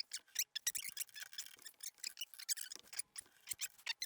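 Quick, irregular light metal clicks and scrapes, typical of small metal parts being worked by hand.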